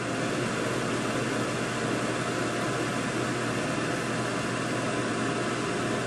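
Comfort Zone compact ceramic space heater running, its fan blowing a steady whoosh of air with a low hum underneath.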